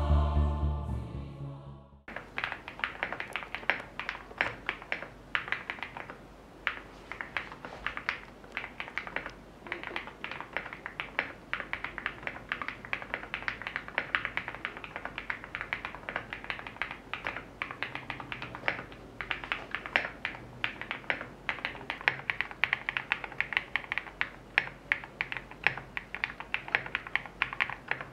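Background music fading out over the first two seconds, then steady typing on the FinalKey V81 Plus, an aluminium-cased 75% mechanical keyboard with a PC plate and lubed switches: a fast run of key clacks.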